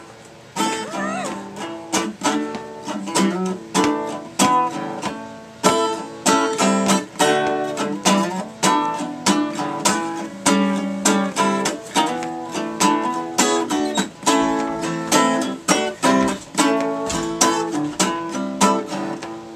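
Guitar strummed in a steady rhythm, chords repeating as the instrumental intro to a song before the singing comes in; the strumming starts about half a second in.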